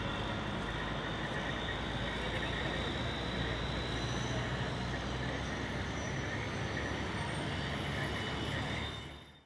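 Street traffic: a steady low engine rumble from trucks and other vehicles, with crowd voices murmuring. It fades out near the end.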